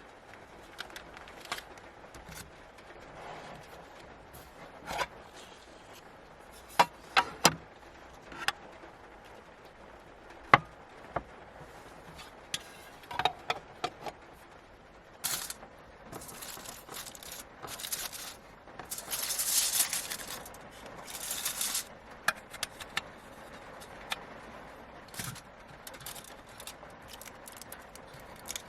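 Small objects being handled and set down: scattered sharp clicks and knocks, then several longer bursts of rustling and scraping about halfway through.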